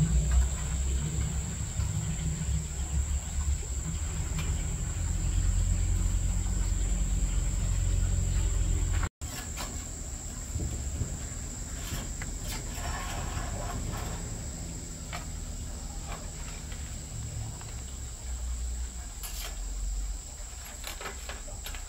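Insects calling with a steady high-pitched drone over a low rumble that is heavier in the first half. About nine seconds in the sound drops out for an instant, and a few light clicks and knocks follow.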